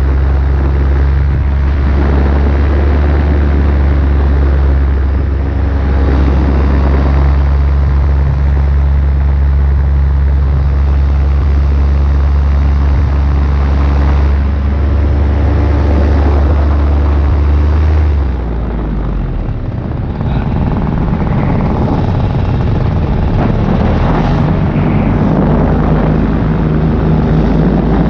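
Paramotor engine and propeller running steadily in flight. About two-thirds of the way in, the steady engine note breaks up and shifts with a change of throttle, then keeps running.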